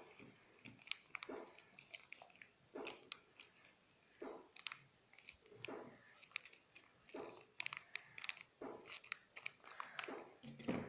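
Domestic cat chewing its food: a series of short, faint chewing clicks in small clusters about every second or so.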